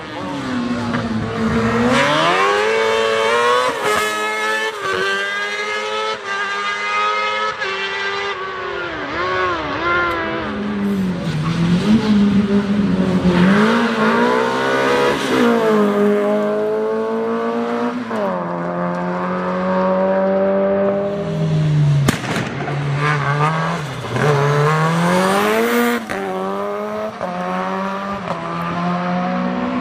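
Rally cars at full effort, engines revving hard through the gears: the pitch climbs, drops sharply at each shift, and climbs again, repeatedly. A few sharp cracks cut through the engine note.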